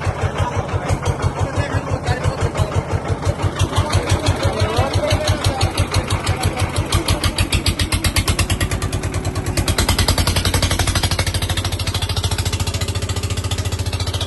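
Boat engine running with an even chugging beat, about four or five strokes a second, which quickens after about eight seconds and settles into a smooth, faster run from about ten seconds in.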